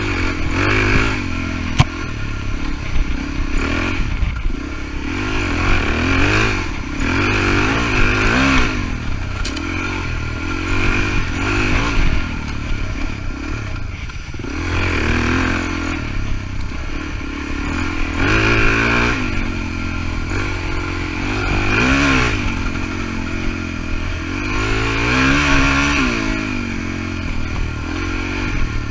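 Suzuki DR-Z400E's single-cylinder four-stroke engine revving up and down over and over as the dirt bike is ridden along a rough trail. A sharp knock comes about two seconds in.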